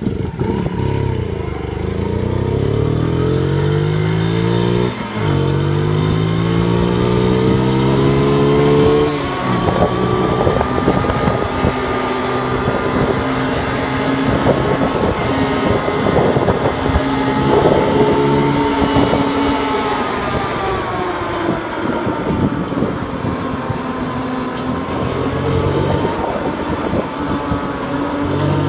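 A Honda Monkey's 49cc four-stroke single pulling away and climbing in pitch, dropping back at gear changes about five and nine seconds in. It then runs at a fairly steady cruise, with wind buffeting the microphone.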